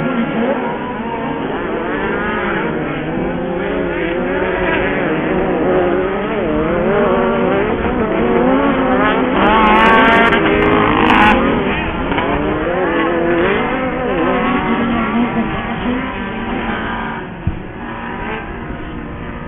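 Several off-road Pro Buggy race engines revving up and down as they run on the track, loudest about halfway through with a few sharp clicks, then dropping off near the end.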